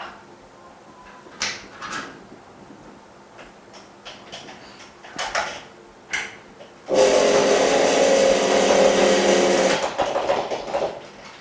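A few light clicks and taps as the screen is fitted into the laminating machine's alignment mould. About seven seconds in, the OCA laminating machine's vacuum pump switches on suddenly with a steady hum and hiss, runs loudly for about three seconds, then cuts off and fades.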